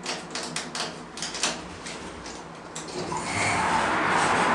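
Otis Gen2 elevator's car door mechanism clicking several times, then the sliding doors opening about three seconds in, letting in a steady rush of louder outside noise.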